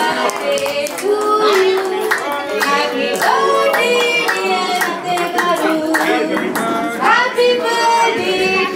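A woman singing into a microphone, with several people clapping along.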